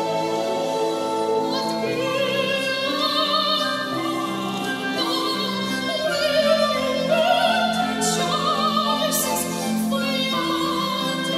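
Young girl singing a solo in an operatic soprano voice, long held notes with a wide vibrato, over a sustained orchestral accompaniment; the voice swells loudest a little past the middle.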